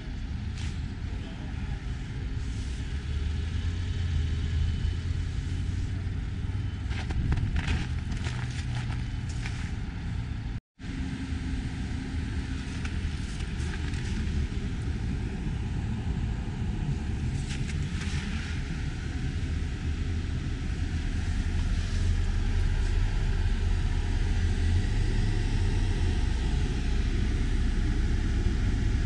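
Steady low rumble and hiss of wind buffeting the microphone, with a few light handling clicks and a brief dropout about eleven seconds in.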